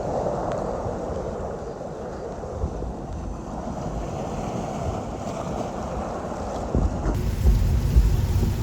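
Muffled, steady water noise from a camera held underwater while snorkelling in the sea. About seven seconds in, the sound changes abruptly to a brighter hiss with a low rumble of wind on the microphone.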